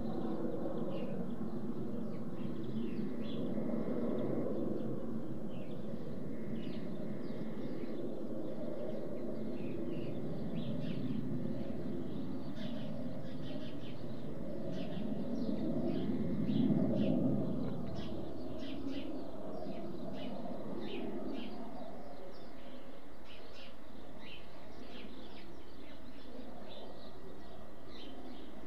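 Distant jet aircraft rumbling overhead, a steady low roar that swells and fades, loudest about two-thirds of the way through. Small birds chirp in quick short notes throughout.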